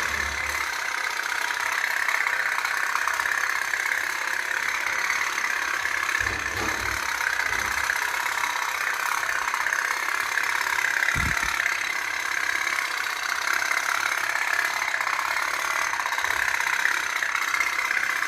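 Toy pop-pop boat running, its small flame-heated steam engine putt-putting steadily.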